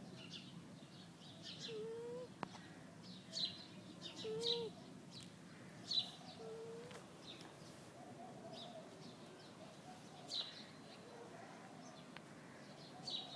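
Sleeping Siamese cat snoring: short, high squeaky whistles come every one to four seconds over soft breath noise, with a few lower wheezy whistles among them.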